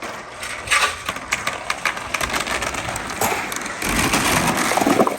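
Marbles and balls rolling and clattering along a wooden marble run: a dense stream of clicks over a rolling rumble that grows louder about three seconds in and falls off suddenly near the end.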